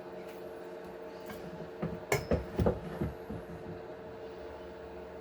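Small parts of an RC truck axle being handled while its gears are greased: a short run of light clicks and taps about two to three seconds in, over a steady hum.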